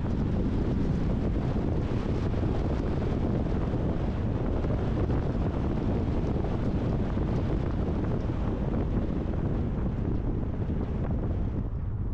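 Wind buffeting the camera's microphone on a moving car, a steady low rushing noise mixed with road noise, which eases near the end.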